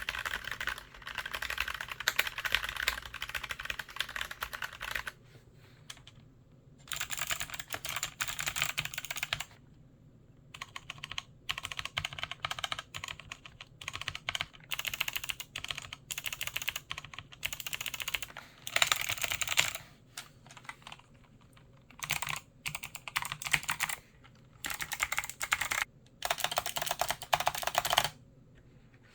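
Rapid typing on a mechanical keyboard: dense runs of key clicks in bursts of a few seconds each, broken by brief pauses.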